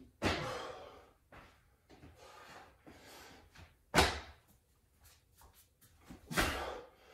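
A person doing broad jumps on a hard floor: three heavy landing thuds, one right at the start, one about four seconds in and one about six and a half seconds in. Fainter scuffs of shoes and hands on the floor come between them.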